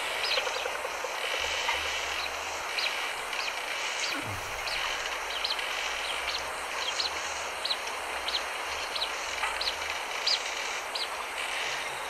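Field recording of blue-winged teal: many short, thin, high peeping whistles, repeated irregularly about once or twice a second, over a steady outdoor hiss and a low rumble.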